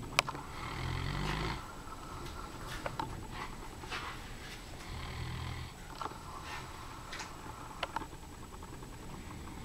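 Komondor dog snoring in its sleep: two long raspy snores about four seconds apart, a fainter one starting near the end. A sharp click comes just after the start, with a few smaller clicks between the snores.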